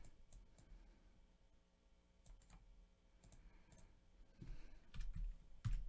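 Sparse, faint clicks of a computer mouse and keyboard, with a few louder clicks near the end.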